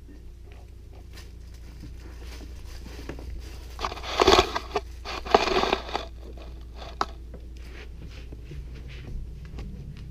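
A dog chewing and mouthing a toy close to the microphone: scattered small clicks, with two louder noisy bursts about four and five seconds in and a single sharp click a little later.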